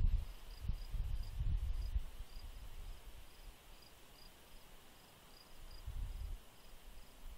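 Crickets chirping steadily, about two to three high chirps a second, over a low gusty rumble that swells in the first two seconds and again near the end.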